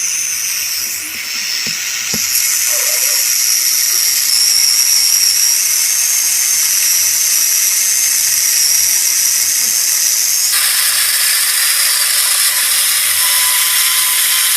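Electric angle grinder fitted with a 12-inch chainsaw attachment running at high speed: a steady high motor whine over a loud hiss and rattle of the chain. The sound turns harsher about ten seconds in.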